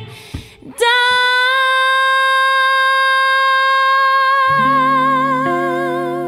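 A woman singing one long held note, unaccompanied at first, its vibrato growing as it goes on. A little over four seconds in, low accompanying chords come in beneath it.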